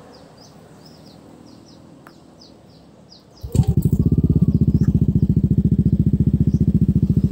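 A bird chirps repeatedly over a quiet background. About three and a half seconds in, a Yamaha Aerox 155 scooter's single-cylinder engine starts and settles into a steady idle through a Krace aftermarket racing exhaust, a rapid even low pulse that is mild but bassy.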